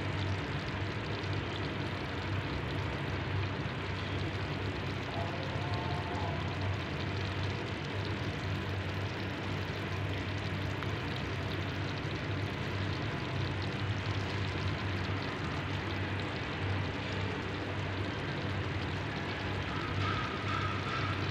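Pot of potatoes in tomato sauce simmering, bubbling and crackling steadily over a low, even rumble.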